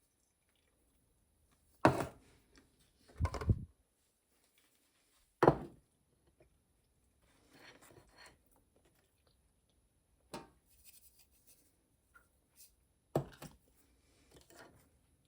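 Objects being handled and set down: several separate sharp knocks, about five spread through, the loudest near the start, with soft rustling between.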